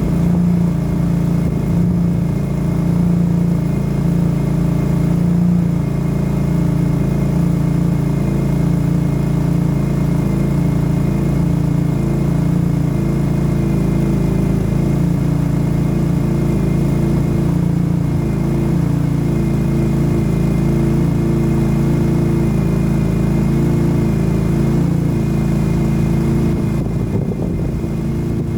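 BMW E46's engine idling steadily while warming up.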